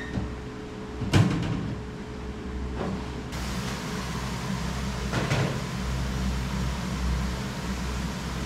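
Kitchen knocks over a steady low hum: a sharp knock about a second in, the loudest sound here, then fainter knocks a couple of seconds apart, such as a cupboard door or kitchenware being handled.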